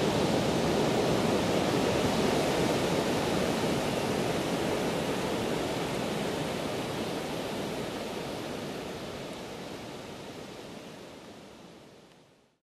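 Ocean surf breaking on a sandy beach as a steady rushing noise, fading out slowly over the second half and cutting to silence just before the end.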